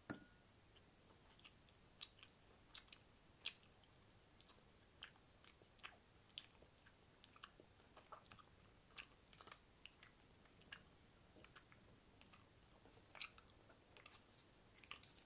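Close-miked wet mouth sounds: irregular lip smacks and tongue clicks, a few of them much louder pops.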